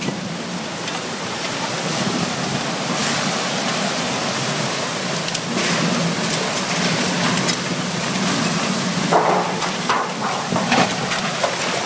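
Heavy rain pouring down in a severe thunderstorm, a steady loud rushing hiss, with a few short sharper noises about nine seconds in.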